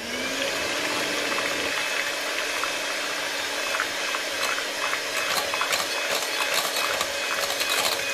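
Electric hand mixer running, its wire beaters whipping instant cream mix and cold milk in a glass bowl. The motor speeds up just at the start, then holds a steady whirr with scattered clicks of the beaters.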